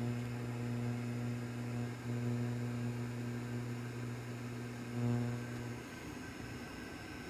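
A steady electrical hum that starts abruptly, swells briefly about five seconds in, and cuts off about a second later.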